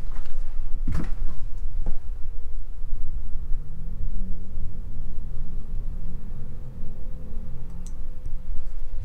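Low rumble of movement and handling noise, with two sharp knocks about one and two seconds in and a faint steady hum underneath.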